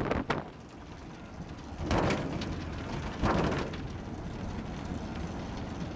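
Wind rushing over the microphone and tyre rumble from an Evo K velomobile rolling along an asphalt cycle path. The noise is steady, with two louder gusts about two and three seconds in.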